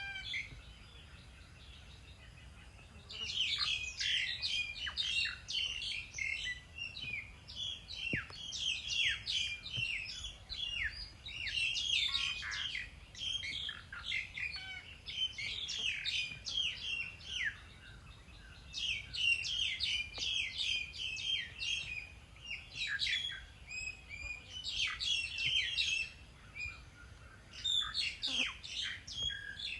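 Small birds chirping in rapid runs of short, high notes, in bouts of several seconds with brief pauses between them.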